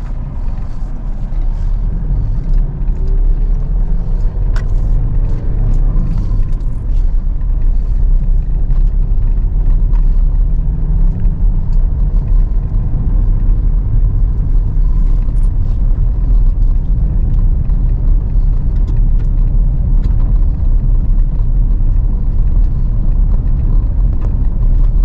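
A 2024 Toyota Tacoma pickup heard from inside the cab while driving: a steady low engine and road rumble that builds over the first couple of seconds as the truck pulls away and picks up speed.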